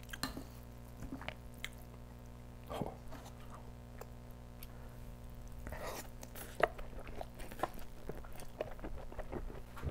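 Close-miked chewing of a mouthful of kimchi fried rice: soft, wet mouth sounds and scattered small clicks, with a few slightly louder bites, over a faint steady low hum.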